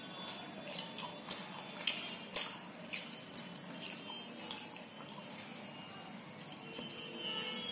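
Wet squelching and clicking of fingers mixing rice with dal by hand on a steel plate: a quick run of short sounds over the first few seconds, loudest about two and a half seconds in, then dying down.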